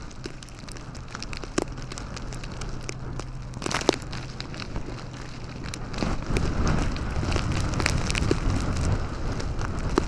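A car stuck in deep snow with its wheels spinning: a steady low engine hum that gives way to a louder rumble about six seconds in, with scattered sharp ticks of wind-driven snow over the blizzard's noise.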